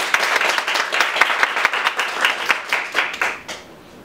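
Small audience applauding, a dense patter of hand claps that dies away about three and a half seconds in.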